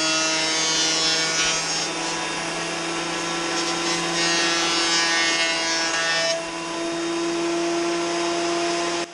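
An electric woodworking power tool running steadily while cutting wood, a constant motor hum under a hiss of cutting. The cutting grows louder for the first couple of seconds and again from about four to six seconds, and the sound stops abruptly at the end.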